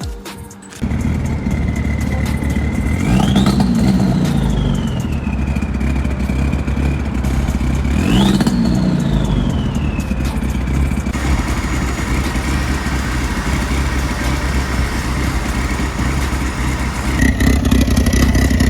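Dodge SRT-4's turbocharged 2.4-litre four-cylinder running. It is blipped twice, each rev rising quickly and falling back slowly, and otherwise idles steadily. The engine is being checked for a misfire and rich running after a new coil pack was fitted.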